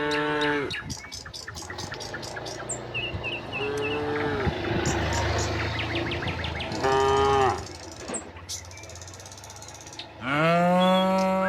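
Several cows mooing back and forth, four separate calls: one at the start, a lower, shorter one about four seconds in, another about seven seconds in, and a long, loud one near the end.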